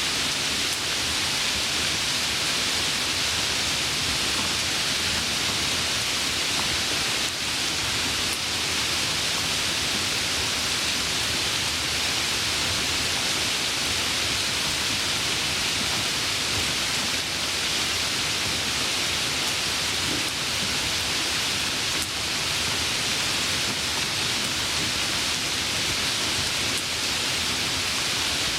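Steady rain, an even hiss with no breaks and no distinct drops standing out.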